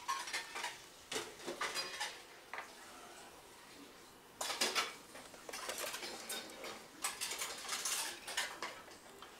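Aluminium pots and a stainless steel tray clinking and knocking as dried pollack are handled and laid into the pots, in several clusters of light metallic knocks with short quiet gaps between.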